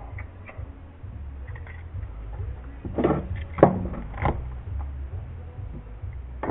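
A small plastic parts bag being handled and torn open: a few crinkling rustles with a sharp click, loudest about three to four seconds in, over a steady low hum.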